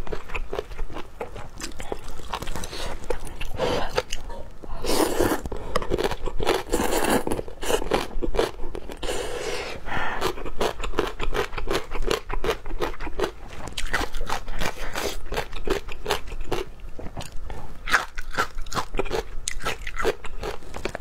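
Eating luosifen rice noodle soup: slurping noodles and chewing, with irregular crunching and wet mouth clicks from the toppings.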